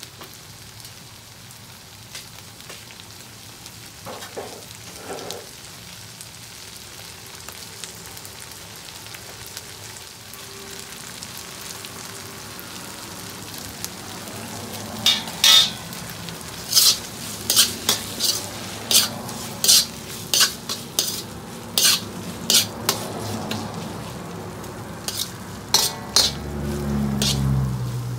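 Shredded smoked skipjack tuna with chili frying in a black wok, with a steady light sizzle. From about halfway, a metal slotted spoon scrapes and knocks against the wok in a dozen or so sharp, irregular strokes as the mixture is stirred.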